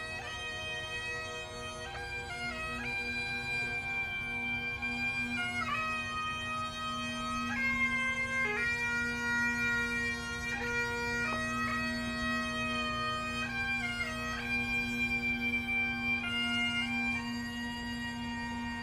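Bagpipes playing a melody over one steady drone, each melody note held a second or two.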